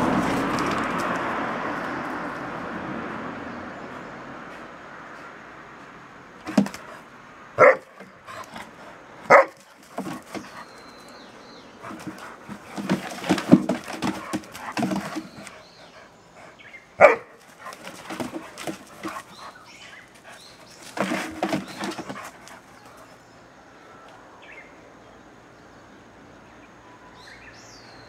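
Borzois play-fighting, barking and growling in irregular bursts: a few single sharp barks a few seconds apart, then denser clusters of barks and growls in the middle. A broad rushing noise fades away over the first few seconds.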